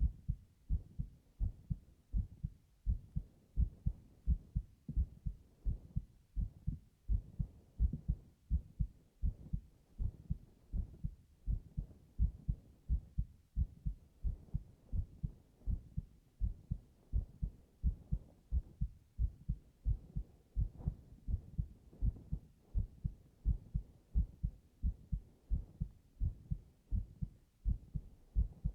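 A man's heartbeat heard close up, as with an ear against his chest: a steady, slow rhythm of low paired thuds, lub-dub, roughly one a second.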